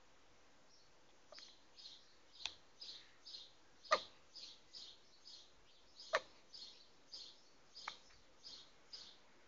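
A newborn baby hiccuping: five sharp little hiccups, one every one to two seconds, the third the loudest. Soft, quick sounds repeat evenly between them, about two or three a second.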